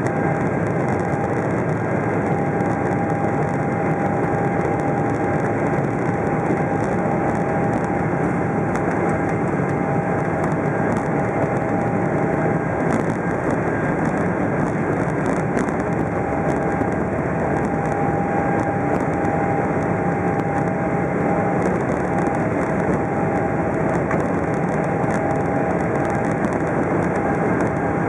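Cabin noise inside a Boeing 777-300ER with its GE90 turbofans running as it rolls on the ground: a steady rush of noise with a faint steady whine.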